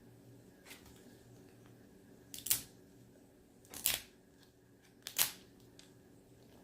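Wrapping on an L.O.L. Surprise ball being peeled and torn off: three short crinkling rips about a second and a half apart, with faint rustling between.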